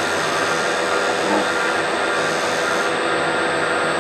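Milling machine running with an indexable shell end mill face-milling a raw potato: a steady machine whine with several held tones over a noisy hiss. The cut is deep for the cutter.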